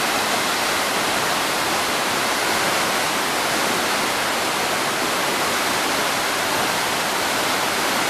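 Waterfall plunging down a rock face: a steady, loud rush of falling water and spray with no change in level.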